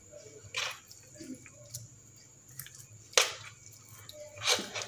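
Wet squelches of raw goat tripe (ojri) being pulled and rubbed by hand against a steel sink to strip off its inner skin: three short ones, about half a second, three seconds and four and a half seconds in, with small wet ticks between.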